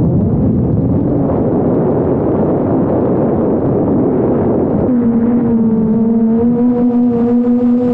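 DJI Mavic Air 2 quadcopter, rebuilt for FPV, in flight: its motors and propellers whir under a rush of wind noise. About five seconds in, the whir settles into a steady hum.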